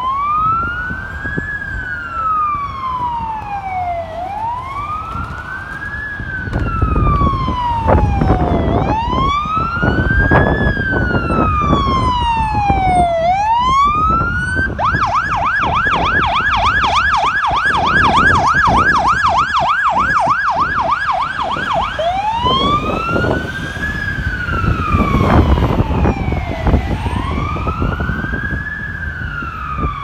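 Fire truck siren sounding a slow rising-and-falling wail, switching about halfway through to a fast yelp for several seconds, then back to the wail.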